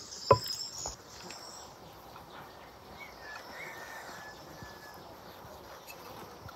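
A wooden spoon knocks once against a ceramic baking dish about a third of a second in, a sharp tap with a short ring. After it comes a low outdoor background with insects buzzing and a faint bird whistle near the middle.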